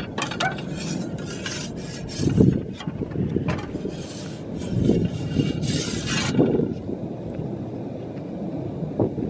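Scraping and light metal clinks during the first six seconds or so, fitting a metal pizza peel working against a pizza oven's stone and perforated pan, then stopping. Wind rumbles on the microphone throughout.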